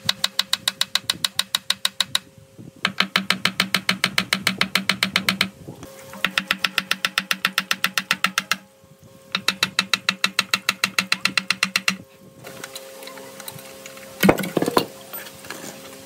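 Rapid mechanical knocking at about ten strokes a second, in four bursts of roughly three seconds with short pauses between, then a single louder clatter near the end.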